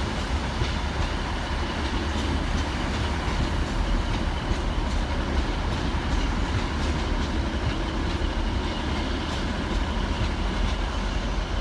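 Pair of Class 158 diesel multiple units arriving at a station: a steady rumble of engines and wheels, with faint clicks scattered through it.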